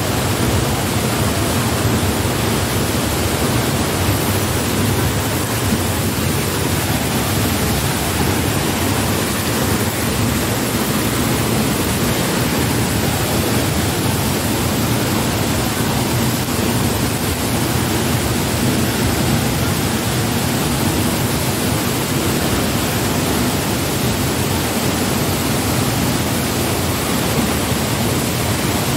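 Steady, unbroken rush of a waterfall and river water over rocks.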